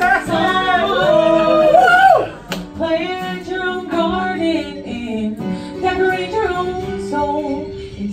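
A woman singing to her own acoustic guitar accompaniment.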